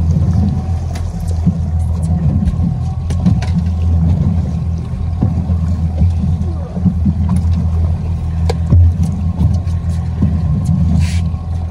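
A boat's outboard motor running steadily, with scattered short clicks and splashes from a fish being fought at the stern.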